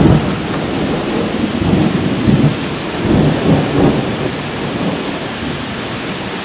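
Thunder rolling over a heavy downpour. The rumble is loudest at the start, swells again a couple of times in the middle, then eases off, while the rain hisses steadily underneath.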